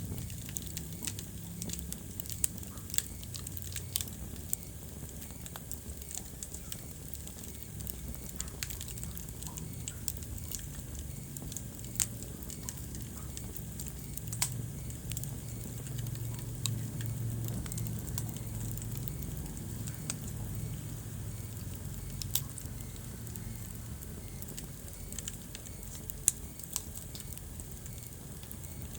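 Wood fire crackling in a fireplace: frequent small snaps and a handful of louder pops, irregularly spaced, over a low steady rumble of the burning.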